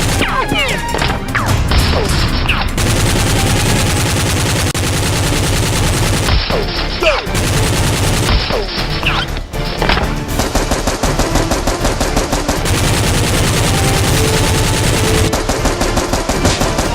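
Rapid automatic gunfire, a dense stream of shots that runs on with only brief breaks, with a few short whizzing glides among them.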